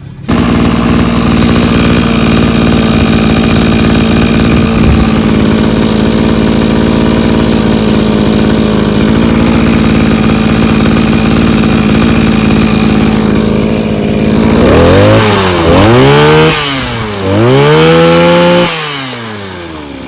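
Small 23 cc Maruyama two-stroke engine running steadily and loud, then revved up and down a few times, one rev held high, before settling back to a quieter idle near the end.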